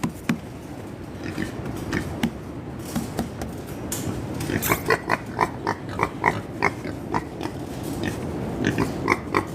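Young Mangalitsa and Landrace-Mangalitsa cross pigs grunting in short repeated grunts, coming thickly, about two a second, in the second half, over a steady low rush of storm wind.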